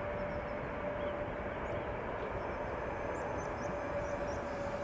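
An engine running steadily: an even rumbling noise with a constant mid-pitched hum, and a few faint high chirps over it.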